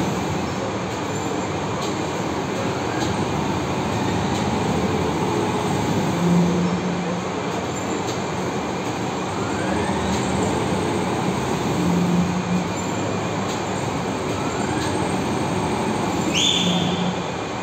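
Steady machinery noise of an overhead crane lowering a hydro generator rotor into its stator, with a few short low hums and a brief high whistle near the end.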